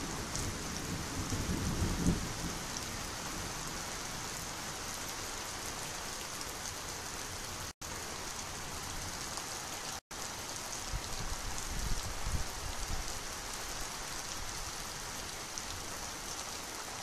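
Steady hiss of light rainfall, with low rumbles near the start and again about two-thirds of the way through. The sound cuts out for an instant twice.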